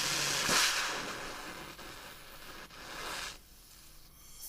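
Oxygen gas torch hissing in uneven surges: loudest through the first second, a second shorter surge about three seconds in, then dying down.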